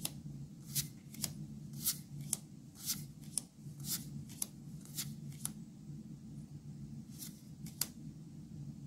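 Magic: The Gathering trading cards being flipped through by hand, a crisp snap with each card about twice a second, then a pause and two more snaps near the end, over a low steady hum.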